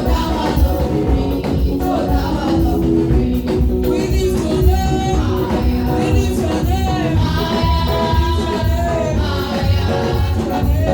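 Upbeat gospel dance music with singing over a steady, heavy beat.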